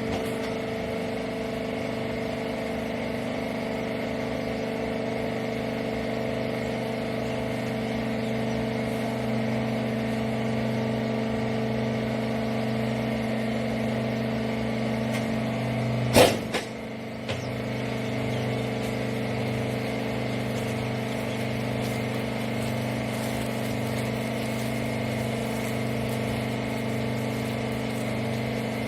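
Hydraulic rag-wiper baling press running with a steady mechanical hum. About sixteen seconds in there is one sharp bang, and the hum drops off for about a second before picking up again.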